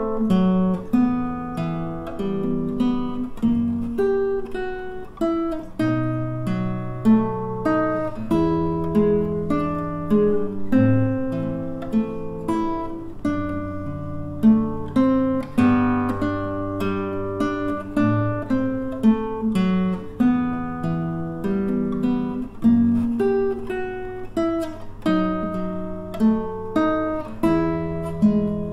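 Solo nylon-string classical guitar played fingerstyle: a romance, with a melody over bass notes, each note plucked and left to ring.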